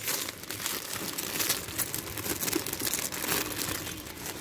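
Thin plastic packaging, a clear poly packet and a plastic bag, crinkling and rustling irregularly as it is handled and opened by hand.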